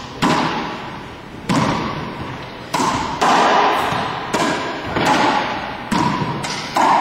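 Racquetball rally: about eight sharp hits of the ball off racquets and the court walls, coming every half second to second and a half, each with a long ringing echo in the enclosed court.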